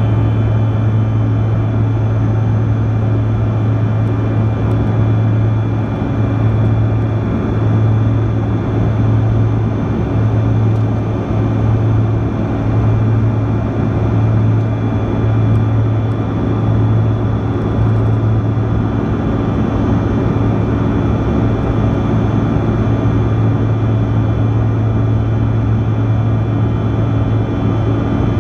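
Cabin noise of a Bombardier CRJ-200 regional jet, heard from a seat near its rear-mounted CF34 turbofans: a steady engine drone with a strong low hum and several high whining tones over a wash of air noise. The low hum wavers slightly.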